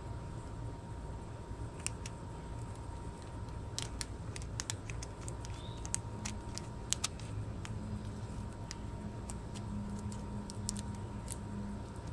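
Irregular light clicks and snips from scissors and velcro strips being handled up close, a few to several per second.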